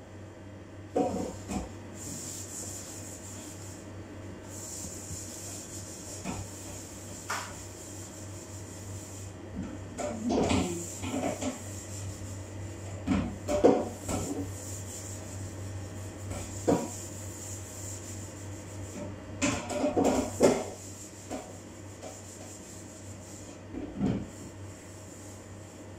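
Scattered knocks, scrapes and rubs of kitchen food preparation: a cutting board scraped against a mixing bowl and a glass bottle of cooking oil handled by gloved hands, over a low steady hum.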